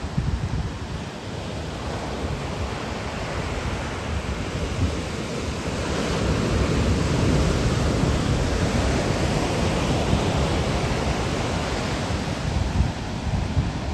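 Ocean surf breaking and washing on the shore, swelling to a peak about halfway through and slowly easing off, with wind rumbling on the microphone.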